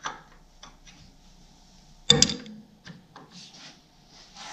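Steel wrench clinking against the clutch-linkage bolt and rods as it is fitted onto the bolt head: one sharp metallic clink about two seconds in, with a few lighter ticks and scrapes around it.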